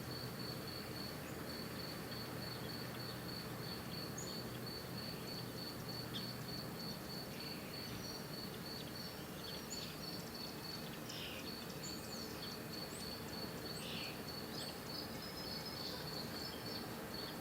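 A cricket chirping in a steady, even rhythm of a few high pulses a second, with short bird chirps and calls coming in from about five seconds in.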